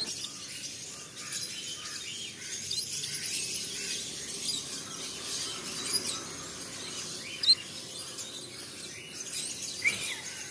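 A cage of Bengalese finches chirping: many short, high calls overlapping, with one sharper call a little after halfway.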